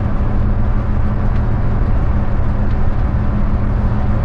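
Hyundai coach's engine and road noise heard from the driver's seat while cruising on an expressway: a steady low drone with a constant hum.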